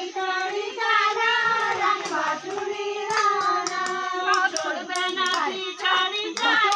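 Women singing an Uttarakhandi folk song together, a slow melody of held, bending notes, with a few sharp clicks in the second half.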